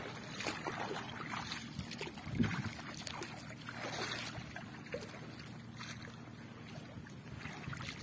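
Shallow water splashing and sloshing irregularly as people wade through it and handle a fishing net.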